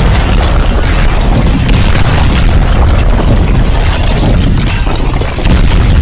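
Explosion sound effect: a loud, continuous rumbling blast with crackling, swelling again about five and a half seconds in.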